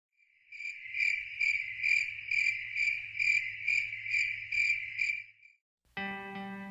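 Cricket chirping in an even rhythm, about two chirps a second, over a low steady hum. The chirping stops near the end and plucked guitar music begins.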